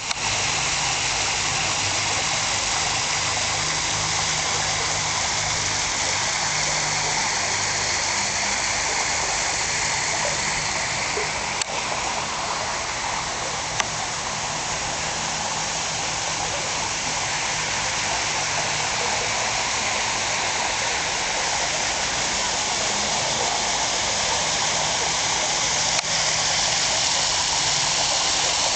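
Water from a backyard pool's waterfall spilling down brick steps into the pool: a steady, unbroken splashing rush.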